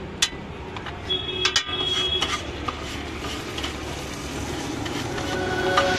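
Metal spatula scraping and clinking on a large flat iron tawa as chopped onion, tomato and green chilli fry in oil, with sharp knocks scattered through a steady background hiss.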